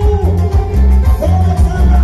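A live Andean cumbia band playing through a loud PA, with a pulsing bass beat under sustained melody lines.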